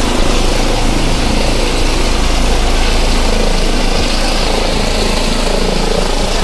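Helicopter flying low overhead, its rotor and engine noise loud and steady.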